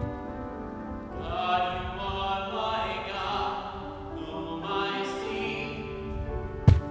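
Sung responsorial psalm at Mass: a solo voice sings slow, held phrases over sustained accompaniment. A sharp knock comes near the end.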